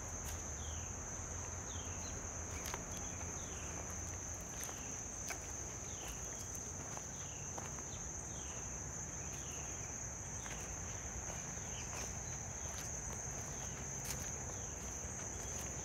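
Steady high-pitched trilling of an insect chorus, with footsteps crunching on a leaf-strewn dirt path. A short falling chirp repeats over it, about one and a half times a second, through the first half.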